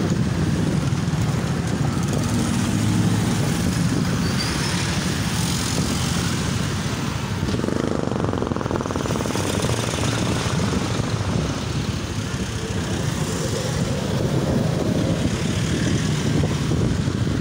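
A convoy of motorcycles and small trucks passing slowly, engines running with steady traffic noise.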